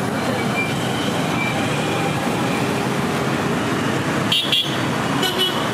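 Steady road traffic noise, with vehicle horns honking twice, briefly, near the end.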